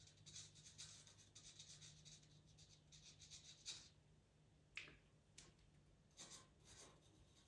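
Faint strokes of a white pastel pencil, held on its side, worked very gently over sanded pastel paper: a quick run of short strokes, then a few sparser strokes with a couple of sharper ticks around the middle.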